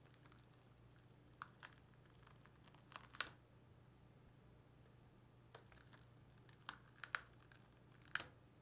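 Faint, scattered crisp clicks and crackles of baked dacquoise shells being peeled off baking paper one at a time, about eight in all, with quiet gaps between them.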